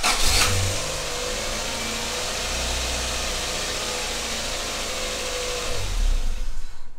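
A 1997 Toyota Starlet's four-cylinder petrol engine is turned over by its starter motor, catches, and runs steadily at idle. It swells briefly lower and louder near the end, then cuts off abruptly.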